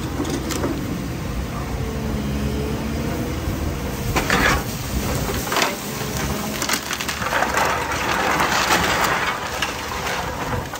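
Hyundai crawler excavator demolishing a house: timber roof beams cracking and clay roof tiles and bricks breaking and crashing down, over the machine's steady engine and hydraulic hum. Sharp cracks about four seconds in, then a long crash of falling debris in the second half.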